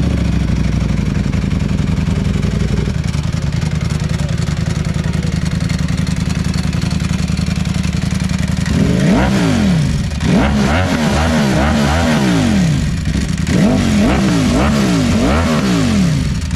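Ducati Panigale V4 SP's V4 engine, fitted with an aftermarket exhaust, idling steadily. From about nine seconds in it is revved in a series of quick throttle blips, each rising and falling in pitch, in three bunches.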